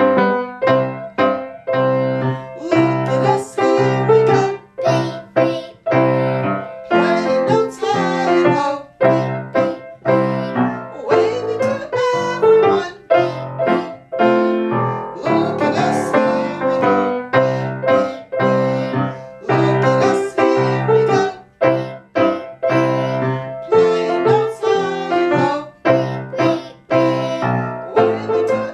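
Piano keyboard played in a steady run of quick, separate notes, a melody with chords underneath.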